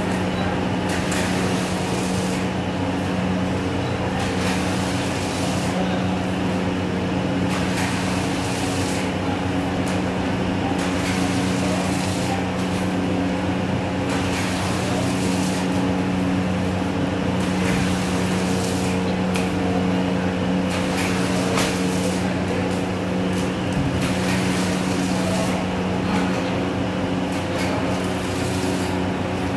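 Vertical pillow-pack form-fill-seal machine running while it packs cooking oil into sachets: a steady mechanical hum, with short noisy strokes every second or few as the machine cycles.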